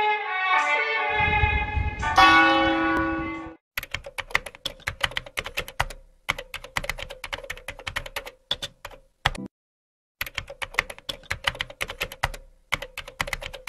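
Computer-keyboard typing sound effect: fast runs of key clicks with brief pauses. It starts about four seconds in, when a few seconds of music cut off.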